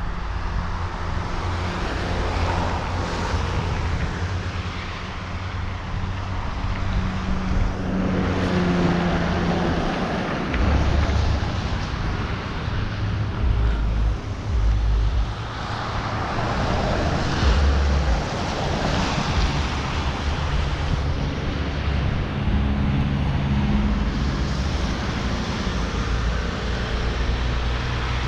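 Street traffic: several cars pass one after another, each swelling up and fading away, with wind buffeting the microphone throughout.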